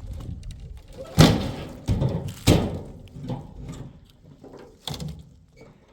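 A few sharp knocks and thumps, three loud ones in quick succession about a second in, followed by fainter knocks of objects being handled.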